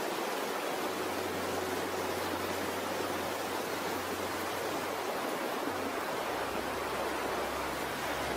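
Floodwater rushing: a steady, even rush of fast-flowing water, with a low hum underneath that drops slightly in pitch a little past halfway.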